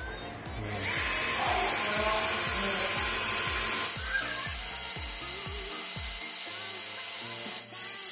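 INGCO 12V cordless drill boring into a concrete wall, the motor and bit grinding loudly for about three seconds from about a second in, then fainter. Having no hammer function, the drill struggles in the concrete. Background music with a steady beat plays throughout.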